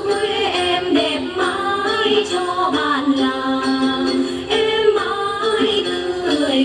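Hát then: a woman's voice singing a gliding, ornamented melody over the plucked accompaniment of several đàn tính, long-necked lutes with gourd bodies.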